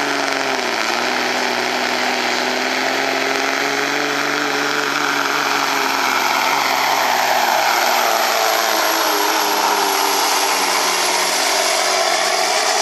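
Altered semi truck's diesel engine running at full power under heavy load as it drags a weight-transfer pulling sled, blowing black smoke from its stacks. The engine note dips about a second in, then holds fairly steady with slight wavering.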